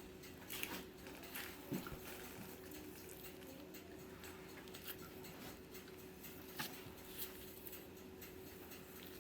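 Faint, scattered taps and scrapes of a knife cutting a boneless pork roll on a cutting board, over a faint steady hum.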